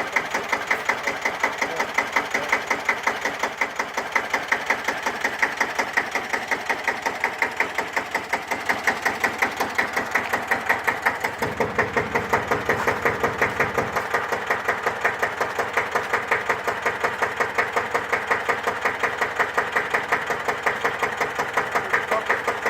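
Air-cooled single-cylinder diesel of a freshly overhauled 1954 Deutz F1L612 tractor idling, each firing stroke a separate even beat in a steady rhythm.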